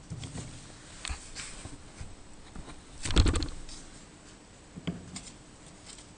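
Small metal clicks and scrapes as the steel tailstock barrel and its casting are handled and fitted together, with one heavier clunk about three seconds in.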